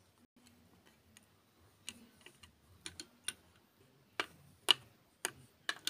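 Small plastic Lego pieces clicking and tapping against Lego plates and bricks as they are picked up, moved and set down: about ten light, irregular clicks, starting about two seconds in.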